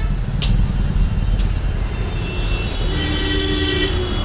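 Road traffic noise: a steady low rumble of vehicles, with a pitched tone sounding for about two seconds from around halfway in.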